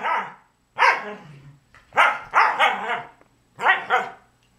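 Two dogs play-fighting, barking and growl-barking at each other in about four short bursts, some with two or three barks run together.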